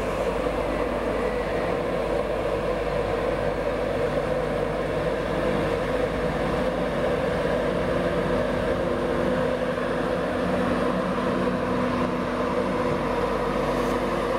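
A Class 91 electric locomotive pulls slowly out of the station at the head of its train. It makes a steady hum that grows a little as it draws alongside.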